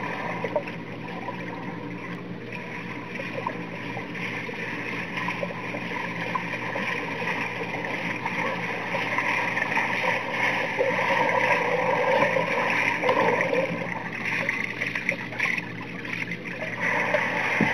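Underwater sound of a swimming pool: a steady hiss and hum with the churning splashes of a swimmer's strokes, growing louder as the swimmer comes close about halfway through.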